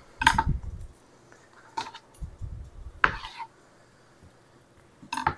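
A kitchen knife tapping on a cutting board four times, about a second and a half apart, as cherry tomatoes are cut in half, with dull knocks of handling after each tap.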